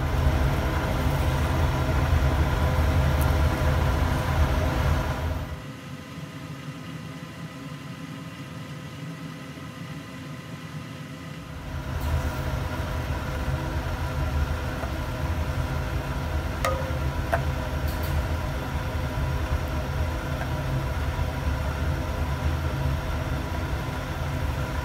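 A steady machine hum, a low rumble with several steady tones above it, like a fan or ventilation unit running. It drops much quieter for about six seconds partway through, then comes back.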